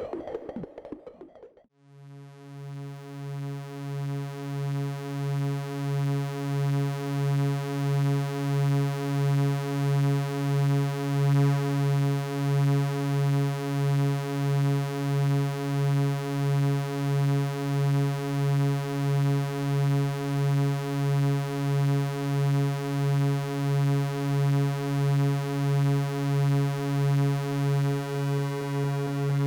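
Synthesizer drone holding one low note rich in overtones, pulsing evenly about three times every two seconds. It swells in about two seconds in, after a busier passage fades out.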